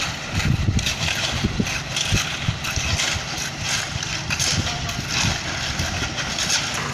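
Concrete mixer truck running at a road-casting site, a steady noisy rumble broken by irregular low thumps.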